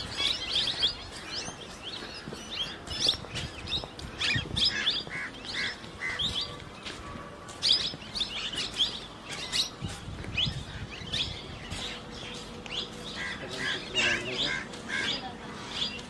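Small birds chirping and twittering throughout, many short, quick high calls overlapping one another.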